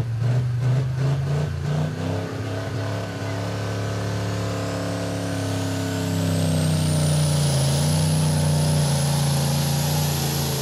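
Diesel engine of a pulling truck at the start of a sled pull, its note pulsing at first, then steadying and growing louder about six seconds in as it pulls away under load. A turbocharger whine rises to a high pitch and holds.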